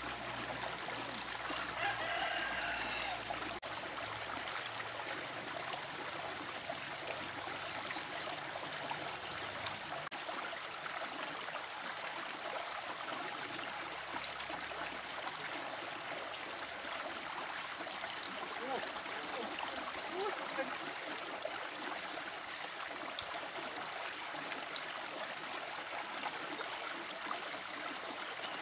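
Small rocky mountain stream running and trickling steadily over a low rock ledge into a pool. A rooster crows once, briefly, about two seconds in.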